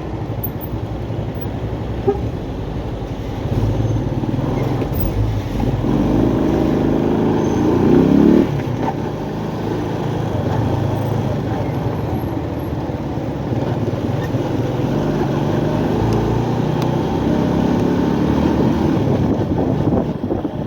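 Motorcycle engine running while being ridden, with road and wind noise. About six seconds in it accelerates, its pitch rising to the loudest point near eight seconds, then cuts back abruptly, as on a gear change or closing the throttle, and carries on at a steady cruise.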